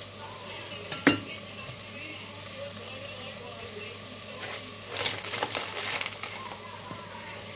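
Chicken pieces frying in a pot, a steady sizzle. There is a sharp knock about a second in and a louder flurry of crackling clicks around five seconds in.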